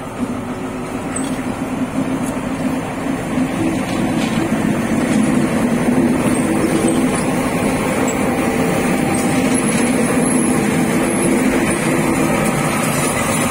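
D20E diesel-electric locomotive running under power as it pulls a freight train slowly past at close range: a steady low engine hum that grows louder over the first five seconds, then holds.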